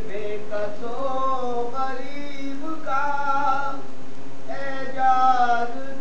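Man chanting a soz, a Shia mourning elegy in Urdu, in long drawn-out melodic phrases. His voice swells louder and higher near the end.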